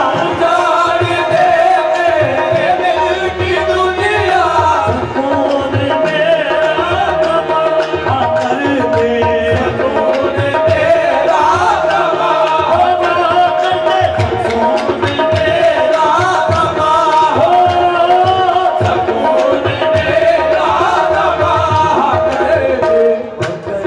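Qawwali music: tabla playing a busy steady beat under sustained melody notes, with gliding, wordless vocal runs rising and falling every few seconds.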